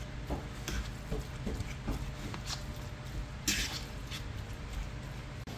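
A metal fork mashing eggplant into saltfish in a plastic bowl: soft, irregular taps and squishes of the fork against the bowl, two or three a second, with one louder scratchy scrape about three and a half seconds in.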